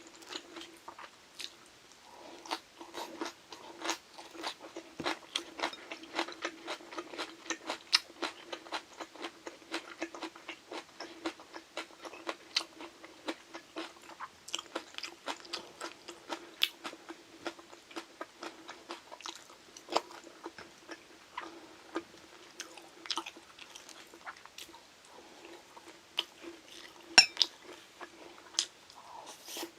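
Close-miked eating: a person biting and chewing crunchy food, with many quick crunches and mouth clicks and one louder clack near the end, over a steady low hum.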